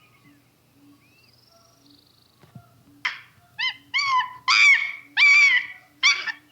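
A series of loud, high-pitched animal calls, short arching yelps repeated in quick succession, starting about three seconds in after a few faint whistling tones.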